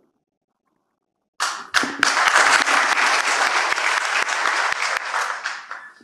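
An audience breaks into applause after about a second and a half of silence. The clapping holds steady for about four seconds and dies away near the end.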